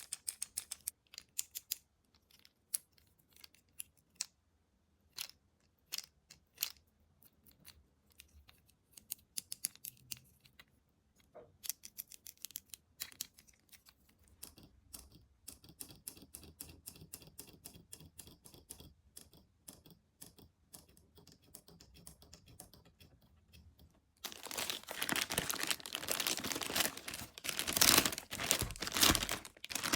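Toy packaging being handled, with scattered sharp clicks and taps, then about three-quarters of the way in a loud, continuous stretch of tearing and crinkling as the packaging is torn open.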